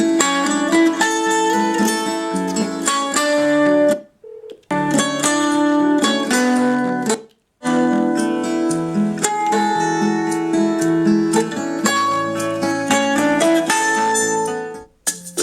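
Plucked and strummed guitar music played through a TG-166 mini portable Bluetooth speaker, broken by short silences about four seconds in, about seven seconds in, and near the end.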